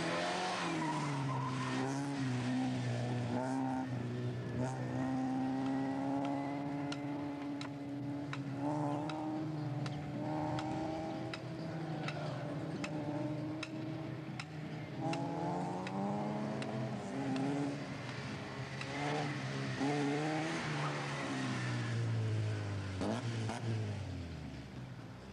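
A Fiat Uno race car's engine revving up and down as the car is driven hard through a cone slalom, with tyres squealing at times. Near the end the engine note falls away as the car slows.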